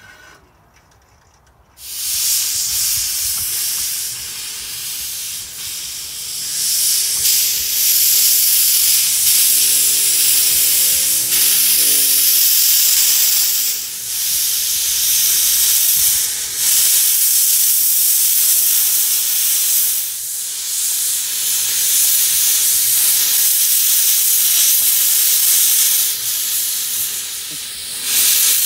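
Small narrow-gauge steam locomotive hissing loudly, with steam jetting from its open cylinder drain cocks. The hiss starts suddenly about two seconds in and dips briefly a few times.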